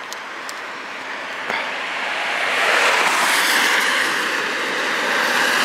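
A road vehicle approaching and passing close by on the road: tyre and engine noise swells over the first three seconds, then stays loud.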